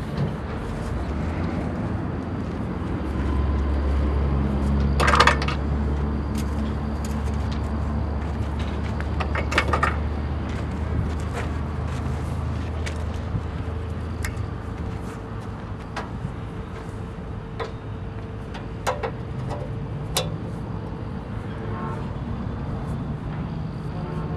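Skid steer engine running, its low hum heaviest in the first half and shifting in pitch later, with scattered sharp cracks and knocks, the loudest about five and ten seconds in.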